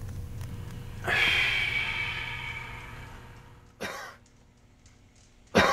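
A person coughs: a short cough a little under four seconds in and a louder one at the very end, a cough the questioner takes as a reaction to cigarette smoke. Before that, a ringing tone starts suddenly about a second in and fades over about two seconds.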